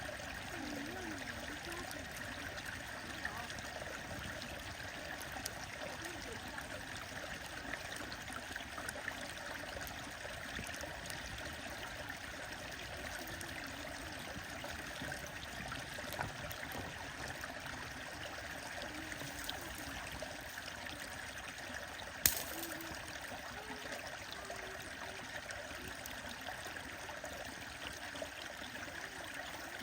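Stream water running steadily over rocks, with a single sharp click about three-quarters of the way through.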